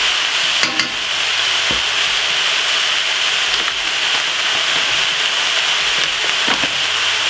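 Minced beef and onions sizzling steadily as they brown in a frying pan, with a few faint clicks about a second in and near the end.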